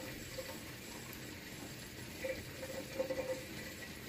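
Faint, steady simmer of a pot of oxtail in water on a stove burner, with a few soft blips around the middle.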